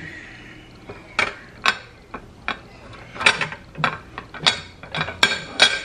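Black wrought-iron frame of a tiered serving stand clinking and knocking as it is handled and fitted around a ceramic serving tray on a countertop: a string of sharp, irregular metallic clinks, more frequent in the second half.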